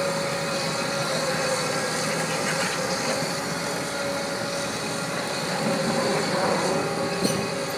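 Liebherr 944 tracked demolition excavator's diesel engine running steadily, with a steady whine over it and a short knock about seven seconds in.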